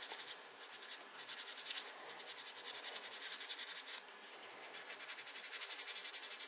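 800-grit sandpaper rubbed back and forth over a small piece of inked reindeer antler, a dry high scratching in rapid short strokes, several a second, coming in bursts with brief pauses.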